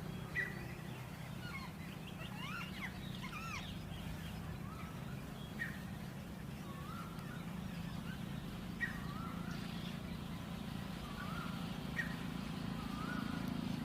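Songbirds calling: a flurry of chirps and quick up-and-down whistles a couple of seconds in, then a short whistled phrase repeated every few seconds, over a steady low hum.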